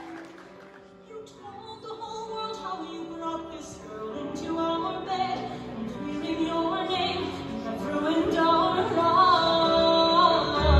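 Recorded show music for a colour-guard routine: a slow, sustained passage with a female operatic voice that starts soft and swells steadily louder.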